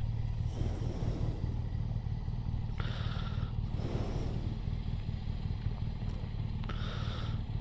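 Motorcycle engine running steadily at a low, even note, with a short hiss about three seconds in and again near the end.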